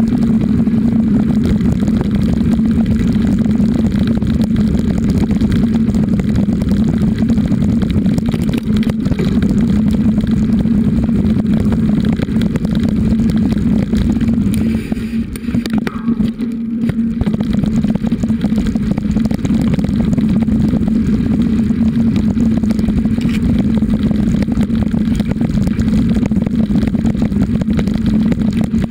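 Steady rumble and rattle of a bicycle ridden over a rough, overgrown dirt track, carried through the bike-mounted camera, with a constant low drone. It eases briefly about halfway through.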